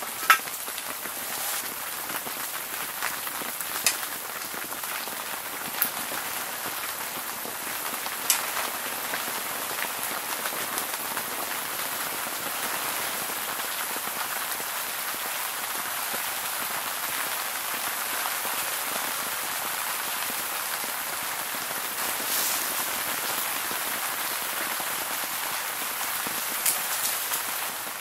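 Heavy rain drumming steadily on the tent, with a few sharp clicks scattered through it.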